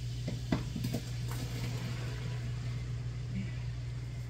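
Sliced onion, leeks and bell peppers dropped by hand into a pot of hot olive oil and garlic: a few knocks as the pieces land in the first second or so, with a steady sizzle as they start to sauté.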